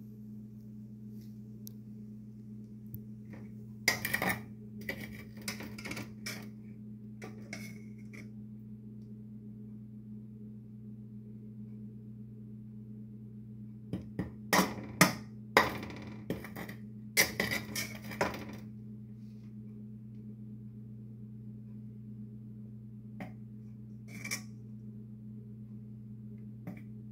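Metal spatula knocking and scraping against a stainless steel wok in two spells of clatter, one a few seconds in and a louder one around the middle, with a few single knocks near the end. A steady low hum runs underneath.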